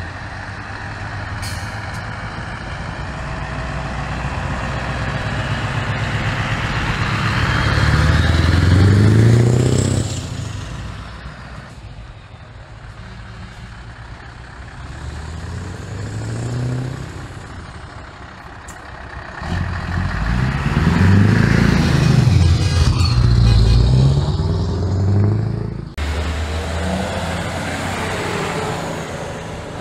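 Heavy trucks' diesel engines, V8s with custom exhaust pipes, revving and pulling past one after another. The engine note rises and falls, loudest about a third of the way in and again in the later part, with a sudden change near the end.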